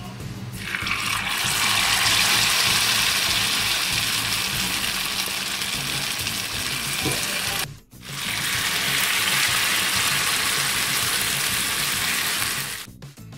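Batter-coated sukhiyan balls deep-frying in hot oil: a loud, steady sizzle that breaks off for a moment near the middle and then goes on.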